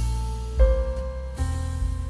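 Background music led by piano or keyboard over a bass line, the chords changing about every second.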